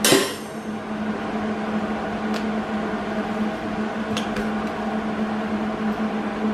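A steel rod set down on a steel grill grate with a sharp metallic clank that rings briefly. After it comes a steady low hum with a couple of faint clicks.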